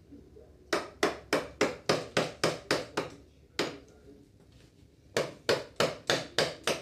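Round wooden mallet striking the handle of a chisel, driving it into wood. There is a quick run of about ten sharp blows, one more after a short gap, a pause, then a second run of about seven blows near the end, roughly four a second.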